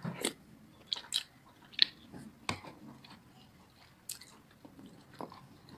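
Quiet eating sounds of someone chewing bakso (Indonesian meatball soup) taken from a spoon, with a scattering of small, sharp clicks and mouth smacks.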